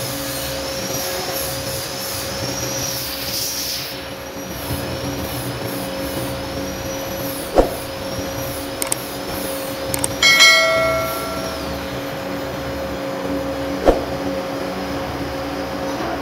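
Manual metal lathe running steadily, with a wavering high whine over the first few seconds. Two sharp clicks, and about ten seconds in a piece of metal is struck and rings briefly with a bell-like note.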